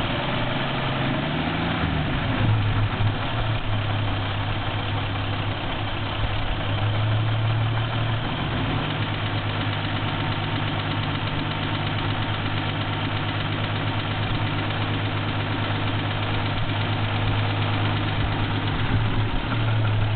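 Toyota 2F straight-six petrol engine idling steadily with a knock in it.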